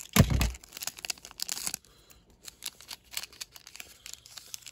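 Foil wrapper of a Pokémon booster pack crinkling and tearing as it is opened by hand: a loud crackle at the start, then lighter crinkling and rustling.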